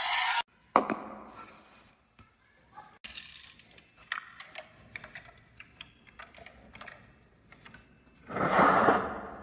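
Small toys and marbles knocking and rolling on a wooden marble-run track. A sharp knock comes under a second in, then scattered light clicks, then a loud clatter lasting about a second near the end.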